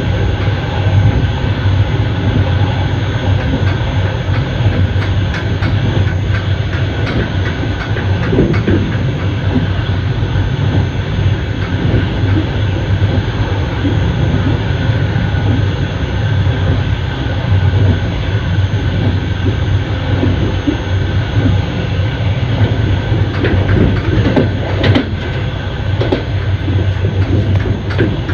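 Passenger train running along the track: a steady loud rumble of the carriage with a few steady whining tones over it, and now and then a sharp click of the wheels over the rails.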